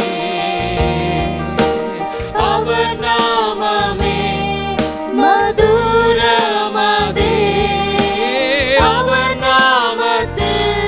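Worship song: voices sing over instrumental accompaniment with a beat, sliding up into notes and holding them with vibrato.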